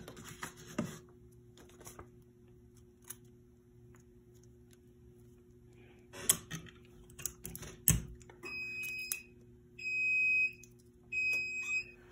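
Tape pulled and snapped off a desktop tape dispenser with a few sharp clicks, then a heat press's timer beeping repeatedly, in about four half-second beeps, signalling that the pressing time is up.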